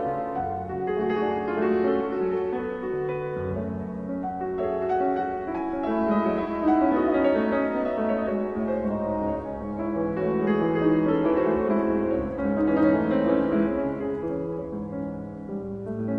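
Background music: slow classical-style piano with many overlapping held notes.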